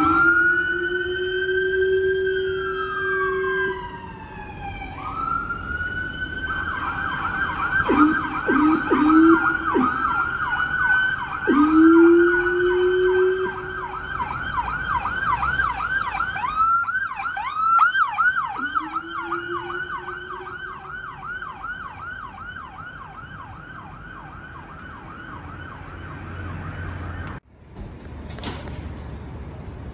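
Fire truck's electronic siren in wail, rising and falling slowly, then switching about six seconds in to a fast yelp of several sweeps a second that runs until near the end. A deep air horn sounds over it in long blasts, with three short blasts in a row about eight seconds in. It cuts off abruptly near the end, leaving street traffic noise.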